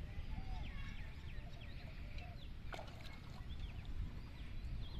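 Birds chirping in many short calls over a steady low rumble, with one sharp click about halfway through.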